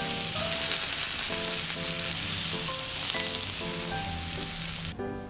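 Takoyaki batter sizzling loudly in a hot takoyaki pan as more batter is poured over the fillings. The sizzle cuts off suddenly just before the end.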